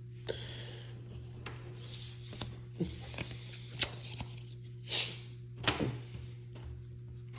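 Soft rustling and a few light taps and clicks from handling trading cards and foil booster packs, over a steady low hum.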